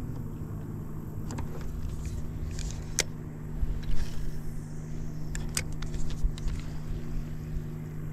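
Electric trolling motor humming steadily at one pitch. A few sharp clicks from the spinning reel come as a cast is made about four seconds in.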